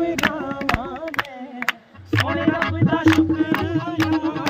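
Live Punjabi devotional hymn: a man singing with hand claps keeping time. The music drops away for a moment about two seconds in, then the singing returns over a steady sustained accompaniment tone and a low rhythmic beat.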